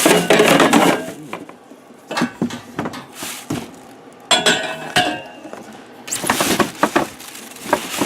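Table saw parts and packaging being handled: loose metal pieces clinking and knocking against each other and the box, with bursts of rustling packing material.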